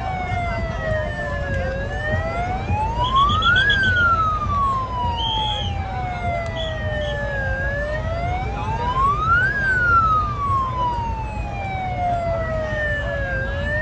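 A siren wails with a slow up-and-down sweep. Its pitch climbs for about two seconds, then sinks over about four, and the cycle repeats, with a steady low rumble underneath.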